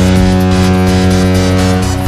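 Hockey arena goal horn sounding one long, steady blast that cuts off near the end, over a goal song with a steady electronic beat.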